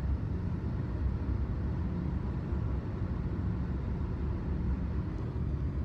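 Steady low rumble of a moving car, heard from inside the cabin: road and engine noise with no distinct events.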